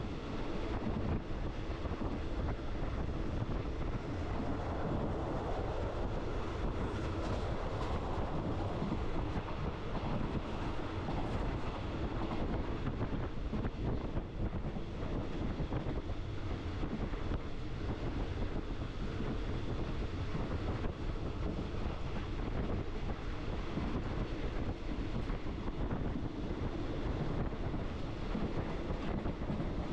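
Steady rumble and rush of a moving passenger train, with wind blowing across the microphone.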